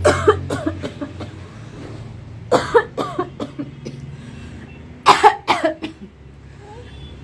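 A woman coughing in three short bouts, a few coughs each: near the start, about two and a half seconds in, and about five seconds in.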